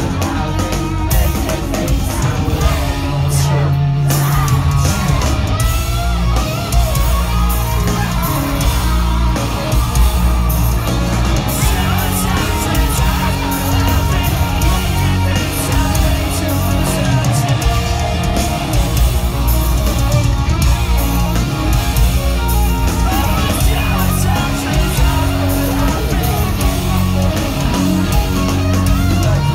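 Live pop-punk rock band playing: electric guitars, bass and drums with singing, heard from within the crowd in a large concert hall.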